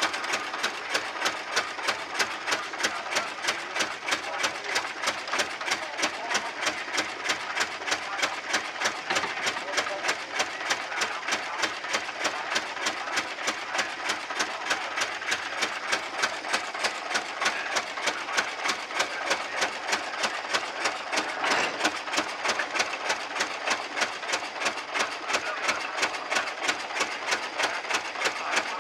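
The horizontal twin-cylinder petrol-paraffin engine of a c.1913 Victoria oil ploughing engine running at a slow, steady beat, with about three sharp, evenly spaced knocks a second.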